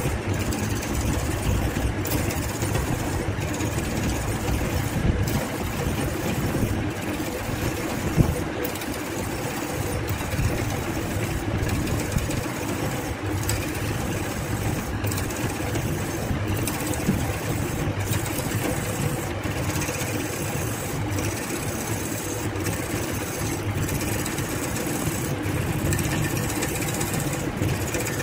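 Burt wood lathe running steadily while a hand-held turning tool cuts a large spinning blue resin blank, giving a continuous motor hum with the scraping of the cut.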